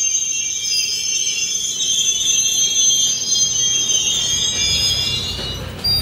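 GO Transit commuter train, MP40PH-hauled, its wheels squealing in several high, steady, slightly wavering tones as it moves along the platform. A low rumble builds over the last second or two, and the squeal cuts off abruptly near the end.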